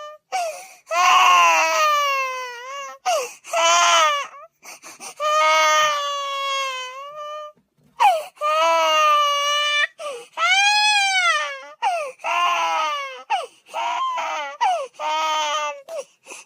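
Infant crying hard and continuously: a string of high-pitched wails, each about half a second to two seconds long, many rising and then falling in pitch, separated by short catches of breath.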